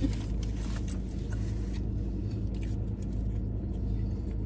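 Steady low hum of a car running while parked, heard inside the cabin, with a few faint clicks of food wrappers and eating.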